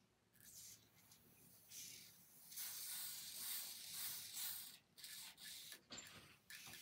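Aerosol can of adhesive holding spray hissing in a few short sprays, the longest lasting about two seconds, as it is sprayed onto a lace wig's edge at the ear. The nozzle is pressed only lightly, so the sprays are brief.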